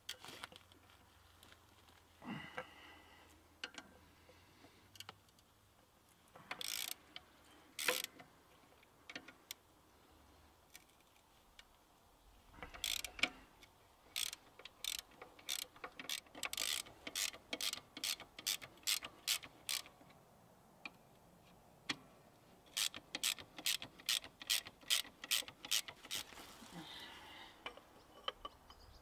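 Socket ratchet clicking in quick runs, about three clicks a second, as the bolts of a tractor's clutch pressure plate are turned, with a few separate metal clinks before the runs.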